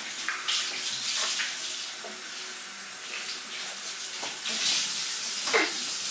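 Steady hiss like running water, with a few soft clicks and a short child's vocal sound near the end.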